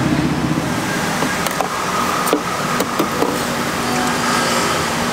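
Steady street traffic noise. Between about one and three and a half seconds in there are several light clinks and knocks of a metal ladle against stainless steel trays and a porcelain bowl as douhua is served.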